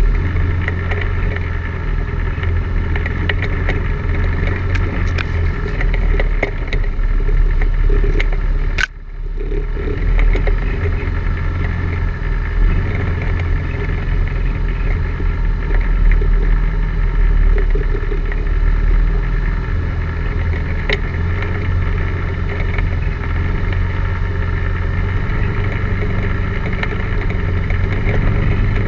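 All-terrain vehicle engine running steadily, with scattered sharp clicks and knocks from the machine jolting over a rocky, root-covered trail. About nine seconds in, the sound drops out abruptly for a moment, then picks back up.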